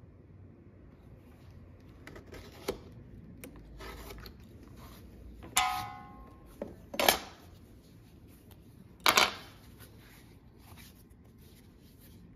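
Metal hand tools, a steel ruler and a utility knife, handled and set down on a workbench. Soft scraping and ticks come first, then a metal clatter with a brief ringing about five and a half seconds in, and two sharp knocks around seven and nine seconds.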